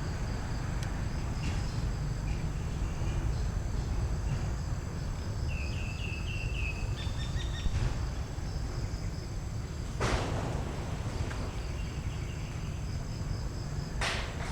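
Outdoor ambience with a steady high insect trill and a constant low rumble. A short run of high chirps comes about six seconds in, and two sharp clicks or snaps come near ten seconds and near the end.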